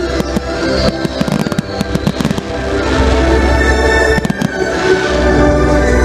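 Aerial fireworks bursting with rapid crackling and popping, thickest in the first couple of seconds, with a few more bangs about four seconds in. Loud music with a heavy bass plays underneath.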